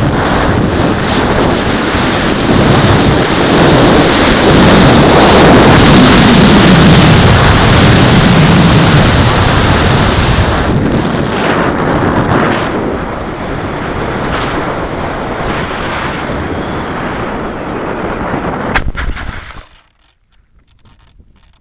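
Onboard audio from an FPV model plane in flight: loud rushing wind buffeting the microphone, mixed with the electric motor and propeller. It cuts off abruptly near the end.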